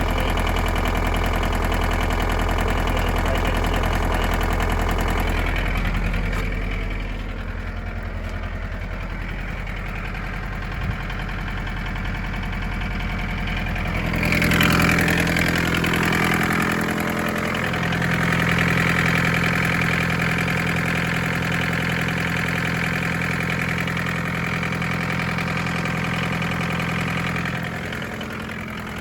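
1981 Isuzu P'up's C223 four-cylinder diesel running at the tailpipe, with diesel knock, through an exhaust that is badly broken. The engine speed drops about six seconds in, picks up around fourteen seconds, holds there, then falls back near the end.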